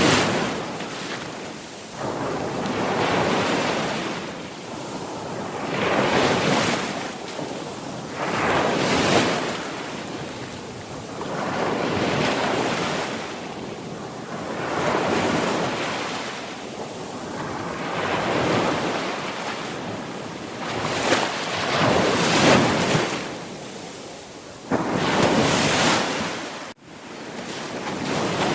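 Sea waves breaking and washing in, each swell rising and falling away, a new one about every three seconds. The sound cuts out for an instant near the end.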